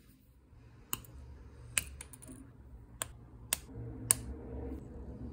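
Hard plastic model-kit parts and sprue clicking as they are handled: five sharp clicks at uneven gaps, the last the loudest, over faint rustling.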